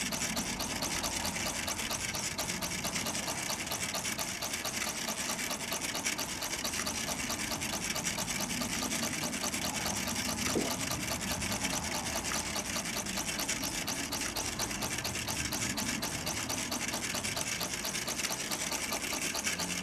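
Small toy vertical steam engine with a copper boiler and a brass cylinder running steadily, with a fast, even chuffing rattle and a hiss.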